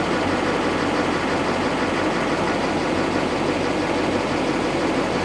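2008 LMM Duramax 6.6-litre V8 turbo-diesel idling steadily.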